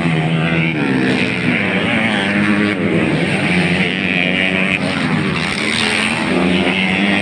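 Several motocross dirt bike engines revving on the track, their pitch climbing and dropping again and again as the riders open and close the throttle.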